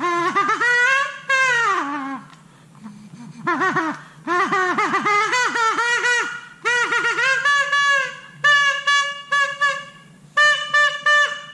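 3D-printed air horn with a snack-packaging plastic diaphragm, blown in test. It opens with a long blast that rises and then falls in pitch, then gives a string of short toots. The pitch shifts as the threaded middle part is turned to adjust it.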